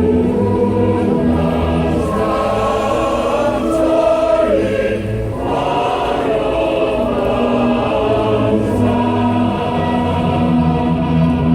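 Music: a choir singing a slow song, with long held notes.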